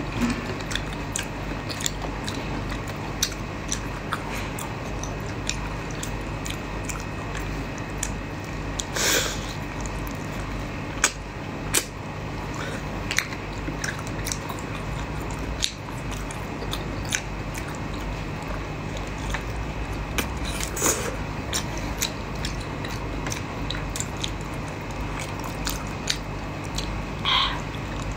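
Raw shrimp being peeled by hand and bitten and chewed: scattered sharp clicks and crackles of shell, over a steady low hum.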